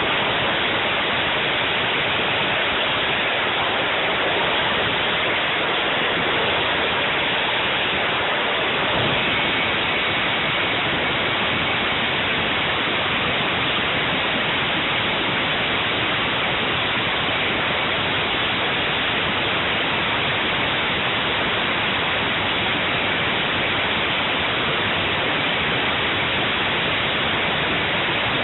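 Homemade gas turbine jet engine on a go-kart, running with a loud, steady rushing noise.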